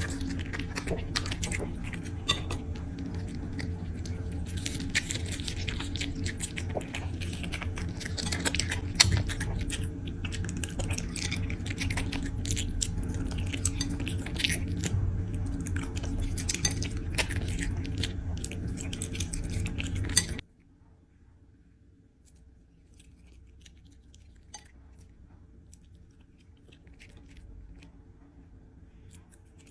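Puppy eating from a dish: chewing with many sharp clicks and clinks against the bowl, over a steady low hum. About twenty seconds in the sound cuts off abruptly to quiet, with only a few faint clicks after.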